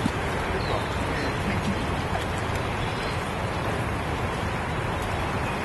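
Steady rushing water below a river dam, an even, unbroken roar.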